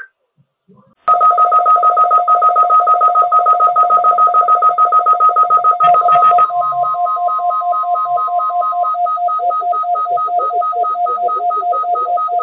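Weather radio warning alarm set off by the weekly test: a loud electronic two-tone beeping that pulses rapidly, then slows to a slower pulse about halfway through, with a steady tone sounding under it for a few seconds.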